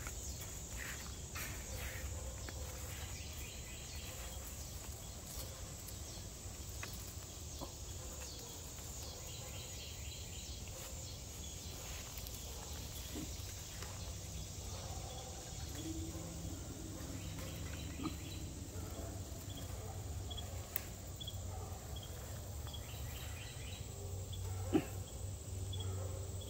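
Outdoor garden ambience: a steady high insect chirring, with soft rustling of leaves and handling noise as the camera moves through the vines, and a sharp click near the end.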